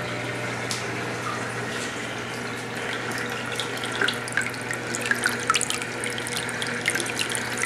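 Water from a wet/dry aquarium filter's return pump pouring out of a PVC pipe elbow into the tank: a steady rush of running water with a low steady hum underneath. Splashes and drips grow more frequent from about three seconds in.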